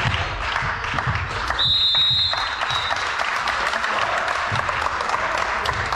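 Clapping and scattered voices in a sports hall during an indoor volleyball match, with low thuds. About a second and a half in comes a short, steady high whistle lasting about a second.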